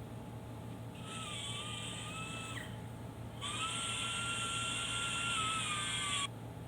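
A small power tool's motor whining at high speed in two runs. The first run of about a second and a half sags in pitch at its end. The second, louder run of about three seconds cuts off suddenly.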